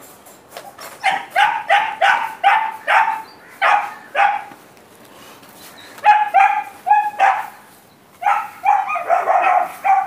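Puppies barking in quick runs of short, high-pitched barks, two or three a second, with brief pauses about five and eight seconds in.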